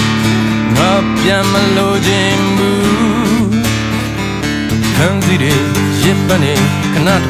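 A Yamaha acoustic guitar plays a slow song, strummed and picked, with a man's voice singing a wavering phrase about a second in and again near the end.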